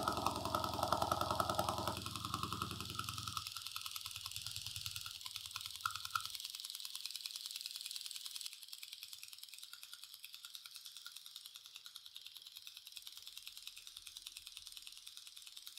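The small motor-driven crank mechanism of a 3D-printed mini volumetric display, running and shuttling its LED matrix rapidly up and down with a fast, even mechanical rattle. It gets quieter from about halfway.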